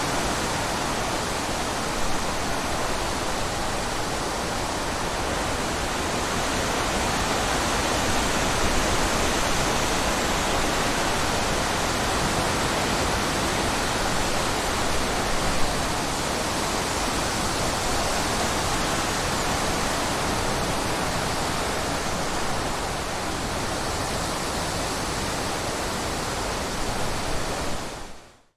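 Steady rushing of running water, even and unbroken, dropping away quickly to silence at the very end.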